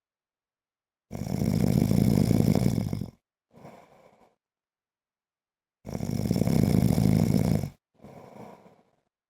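A man snoring in his sleep: two long, loud snores of about two seconds each, some five seconds apart, each followed by a shorter, much softer breath.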